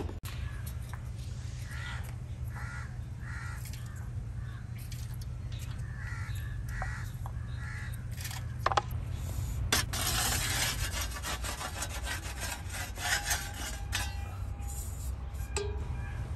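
Crows cawing again and again over a steady low rumble. About nine seconds in comes a knock and a sharp click, then a second or so of scraping and rustling from the bagels being handled on the peel and the steel tray.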